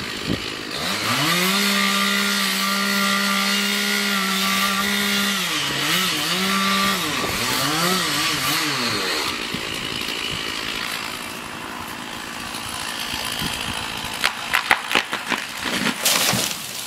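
A small engine revving up and holding a steady high speed, then dropping and surging several times before it fades into a rough, noisy clatter with sharp clicks near the end.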